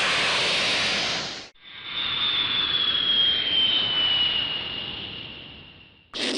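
Dragon Ball anime sound effects: a loud rushing burst that cuts off about a second and a half in, then a rushing hiss with a high whine that slowly falls in pitch and fades away over about four seconds. A new effect starts just before the end.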